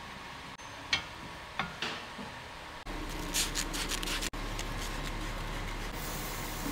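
Small metal brake parts handled and rubbed with grease, with a few light clicks, then a steady hiss of an aerosol can spraying about six seconds in, over a workshop hum.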